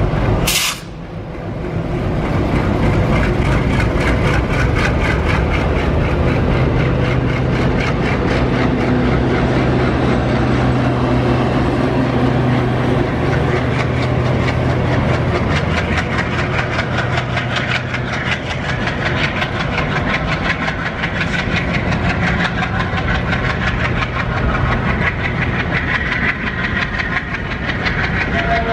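Diesel-hauled LHB passenger train passing close by: the locomotives' engine rumble, then a continuous rapid clatter of coach wheels over the rail joints as the coaches roll past.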